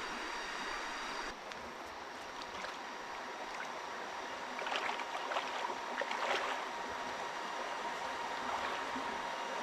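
Steady rushing water noise, with a few sharper taps and crackles in the middle few seconds.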